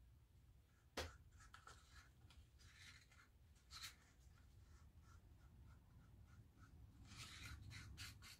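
Faint scraping and tapping of a wooden stir stick against a kitchen sink strainer as acrylic paint is worked through it, with one sharp click about a second in and a second spell of scraping near the end.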